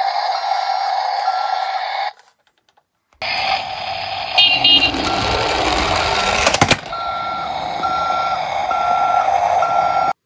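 Toy garbage truck's built-in electronic sound effect from its small speaker: a steady engine-like hum with a reversing beep about once a second. After a short break it resumes with a rumble of the truck rolling on wood and a quick clatter of sharp knocks about two-thirds of the way through.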